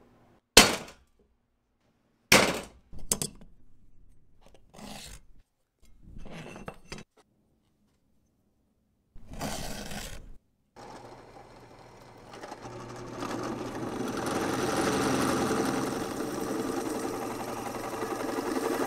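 A few sharp metallic knocks as aluminium parts are set against a steel workbench, the loudest about half a second in. From about two-thirds of the way through, a drill runs steadily, boring into aluminium stock.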